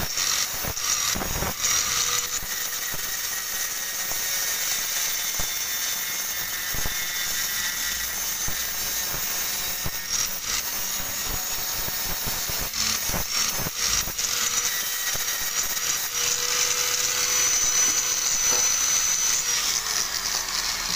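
Electric angle grinder grinding the steel oil pan around its drain plug seat: a steady high-pitched whine with scraping grinding noise. Near the end the disc is lifted off and the whine falls in pitch as the grinder spins down.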